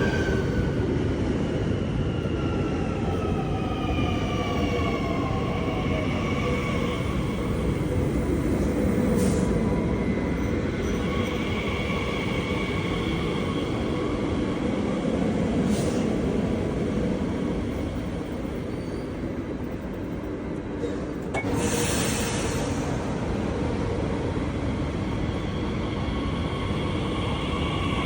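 A Z 50000 electric multiple unit running, its traction-motor whine a set of tones that fall in pitch over the first several seconds, hold steady, then climb again near the end, over a constant rumble of wheels on rail. A brief hiss about 22 seconds in.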